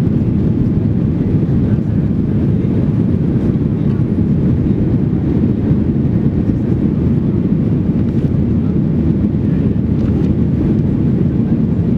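Cabin noise inside a Boeing 737-800 climbing just after takeoff: the steady low drone of its CFM56-7B jet engines, even and unbroken.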